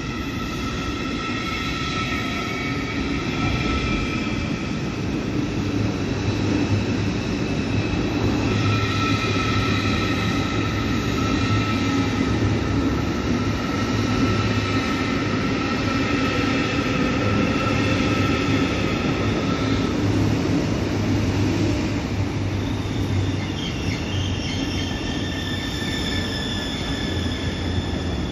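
Deutsche Bahn ICE high-speed train rolling slowly along a station platform: a steady rumble and low hum with several high, steady squealing tones, which drop out about two-thirds of the way through and return with a different pitch near the end.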